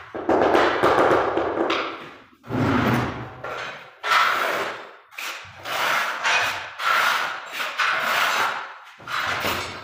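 Tile-setting knocks: about nine separate thuds on porcelain floor tile, each ringing briefly in a large bare room, from a rubber mallet and hands bedding tiles into adhesive.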